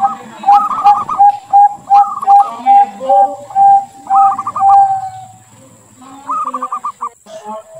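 Zebra dove (perkutut) cooing its song: quick bubbly trills alternating with a string of clear, evenly spaced coos about two or three a second, ending on a longer drawn-out note about five seconds in, then starting a new trilled phrase near the end.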